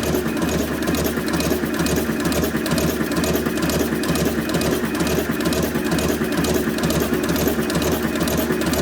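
A machine running steadily, with a hum and a low pulse repeating about twice a second.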